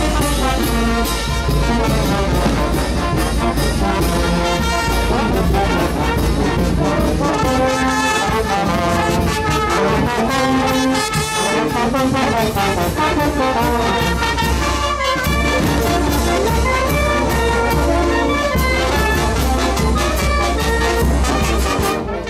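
Oaxacan Mixe brass band (banda filarmónica) playing a lively tune, with trumpets, trombones and a deep brass bass over a steady drum beat.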